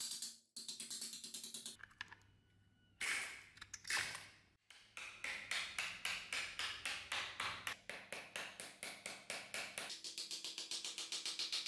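Hand file rasping across the edge of a thin sheet of metal in quick, regular strokes, about four or five a second, with light music underneath.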